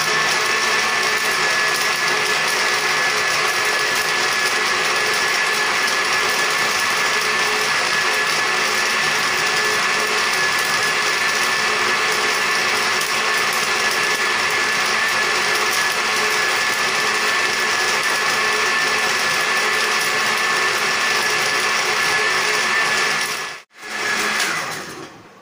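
An electric blender-grinder runs steadily with a high motor whine, blending phalsa berries with sugar and water. Near the end it cuts out abruptly, then winds down with the whine falling in pitch.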